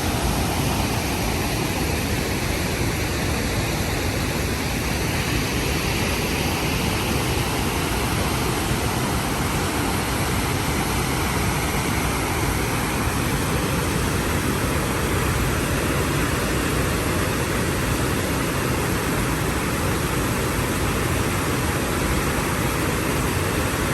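Waterfall: falling water rushing steadily, an even noise that does not change.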